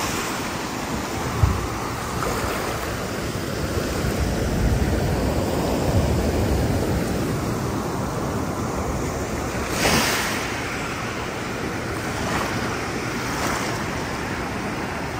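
Ocean surf washing up the beach in shallow water, a steady wash with a brighter hiss as a wave breaks about ten seconds in, and smaller ones near the end. Wind buffets the microphone.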